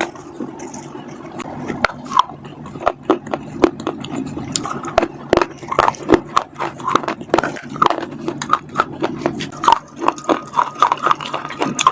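Close-miked bites into a hard, crunchy bar: many sharp cracks and crunches in quick, irregular succession, over a steady low hum.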